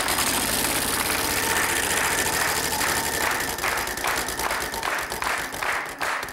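Game-show prize wheel spinning: its pointer ticking against the pegs, rapid at first and slowing steadily as the wheel winds down, over applause at the start.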